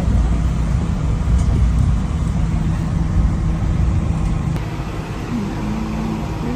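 Car engine and road noise: a steady low rumble that drops in level about four and a half seconds in.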